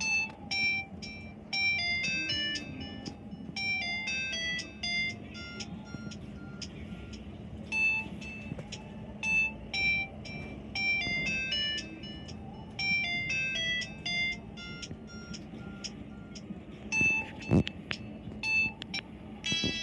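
A Samsung GT-E1150 mobile phone plays a ringtone through its small speaker: a quick melody of short electronic beep notes that repeats its phrase. There is a single knock near the end.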